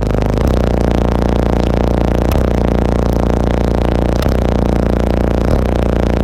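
Very loud, deep, steady bass from a competition car audio system of Sundown Neo 18-inch subwoofers, holding one low note with a few short breaks.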